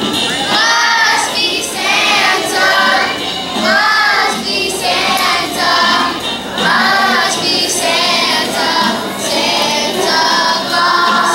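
Children's choir singing a song in phrases of held notes, one after another.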